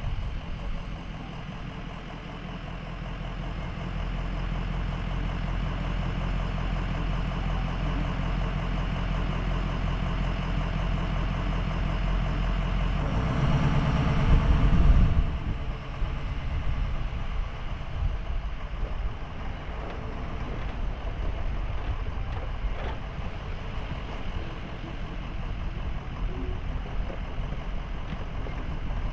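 Sportsmobile camper van driving, its engine and running noise heard from a camera on the roof. The noise swells louder about halfway through, then drops off suddenly.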